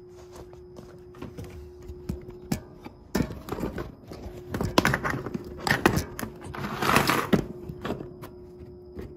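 Handling noise: knocks, clicks and rubbing as the camera and gear are moved around the motorcycle engine, busiest in the middle few seconds, over a steady hum.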